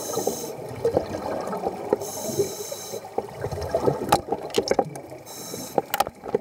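Scuba regulator breathing underwater: three short hissing inhalations through the regulator, about every two and a half seconds, with bubbling and clicking of exhaled air between them.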